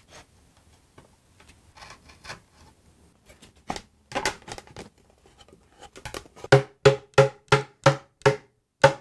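A dovetailed wooden drawer being tapped together with a small brass-headed hammer: a few light scrapes and taps, then from about two-thirds of the way in a run of sharp wooden knocks, about three a second, each ringing briefly in the hollow drawer box as the joint is driven home.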